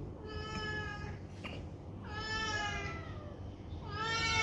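Kittens meowing: three long meows, each about a second, the second sliding down in pitch.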